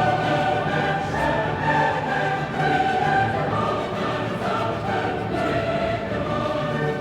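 Choral music: a choir singing long held notes that change pitch every second or so.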